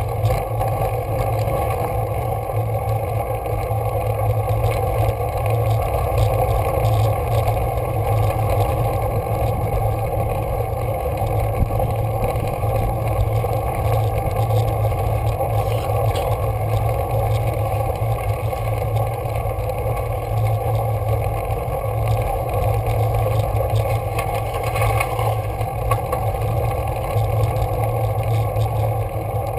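Steady, unbroken rumbling noise from a road bike's ride-along camera on a climb: the wind and rolling noise that the bike and rider put onto its microphone.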